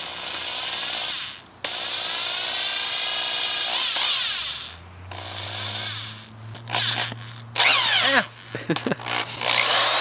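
Cordless drill run with no load in several bursts, its motor spinning up and winding down as the trigger is squeezed and let go.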